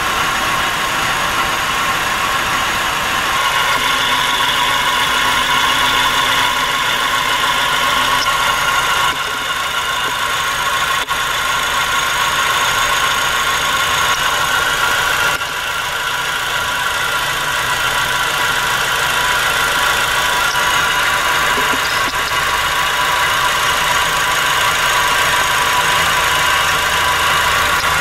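Fuel injectors on a 1997 Nissan Altima's 2.4-litre four-cylinder clicking, heard through a mechanic's stethoscope while the engine idles rough with a cylinder 4 misfire. The sound shifts about nine and fifteen seconds in. Each injector sounds a little different, but all sound like they are working, which points away from the injectors as the cause of the misfire.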